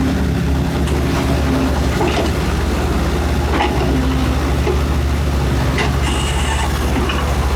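Excavator's diesel engine running steadily with a low, even drone, and a few faint knocks over it.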